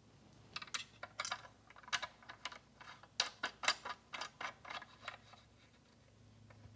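A quick, irregular run of light clicks and clinks from about half a second to five seconds in: the Rail angle guide and its mounting hardware being handled and fitted onto the top bearing of a 1x30 belt sander.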